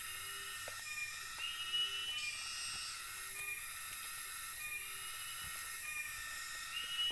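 Tropical forest insect chorus: steady high buzzing and shrill trills that swell and fade in a repeating cycle about every second and a half, with a faint short low call repeating about once a second.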